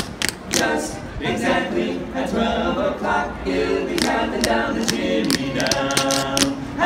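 Barbershop quartet singing a cappella in close harmony, with several sharp clicks scattered through.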